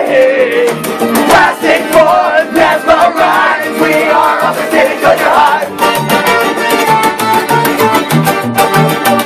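Live band playing loud rock music with guitar and drums. A voice sings over roughly the first six seconds, then the band plays on without vocals.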